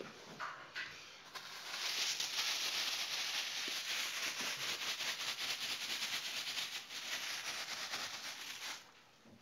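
Clear plastic bag crinkling and crackling as puppies chew and tug at it. A dense rustle starts about a second in and stops suddenly near the end.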